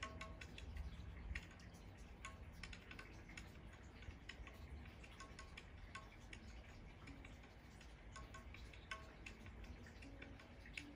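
Near silence, with faint, sparse chime-like notes and soft ticks every second or so over a low rumble.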